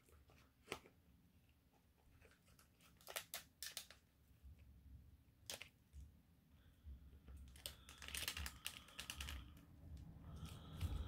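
Faint, scattered clicks and crinkling of plastic as an action figure is handled and worked out of its packaging. The clicks come thicker for a couple of seconds near the two-thirds mark.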